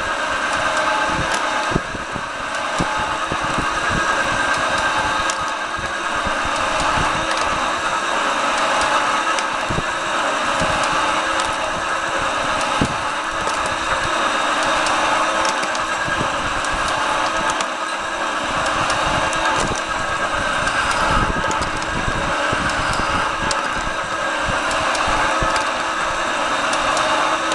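Metal shaper running steadily, its cutting tool taking flattening passes across a metal table top, with scattered sharp clicks throughout.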